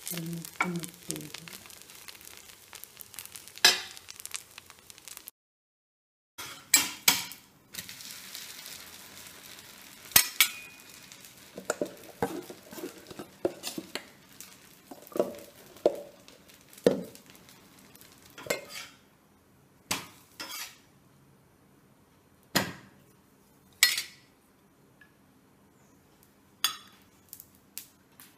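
Metal kitchen utensils clinking and scraping: a steel spatula scraping cooked appams off a hot cast-iron pan with some sizzling, then a spoon knocking against the rim of a steel batter pot. The clinks come one at a time, roughly every second, with a brief dead gap about five seconds in.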